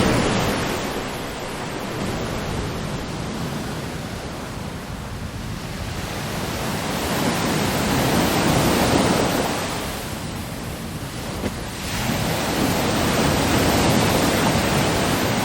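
AI-generated ocean surf sound effect: waves washing in and out in slow swells, with an abrupt jump to a new surge about twelve seconds in.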